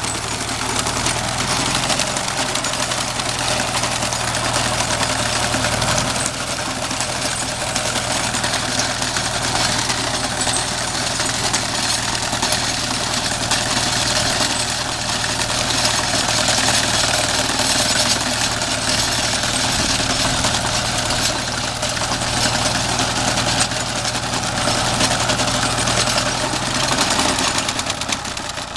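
Massey Ferguson 825 tractor engine running steadily while it drives an IH sickle-bar mower, whose reciprocating knife clatters as it cuts standing grass.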